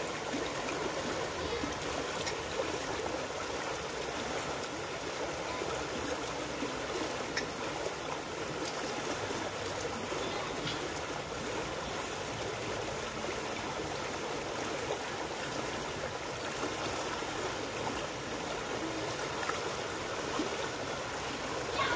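River water running steadily over rocks in a shallow, rippling stretch: a constant rushing wash.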